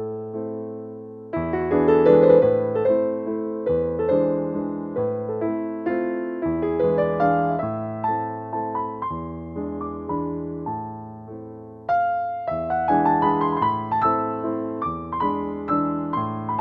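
Background piano music: a gentle piece of struck notes and chords that ring and fade, with a phrase dying away and a new one starting about a second in and again about twelve seconds in.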